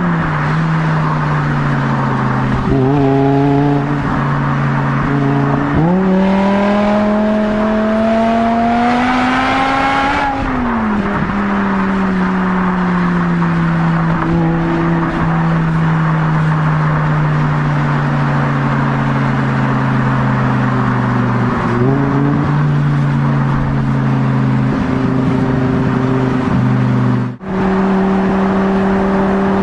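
Car engine pulling hard through the gears: its pitch climbs for a few seconds and drops back at each upshift, about six and ten seconds in. It then holds a long steady drone at speed that sags slowly, with a brief blip and a short break near the end.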